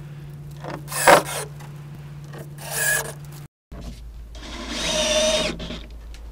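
Cordless drill driving screws through the round center support disc into the subfloor. It runs in short spurts: a sharp knock about a second in, a brief run near three seconds, and a longer run of about a second and a half starting about four seconds in.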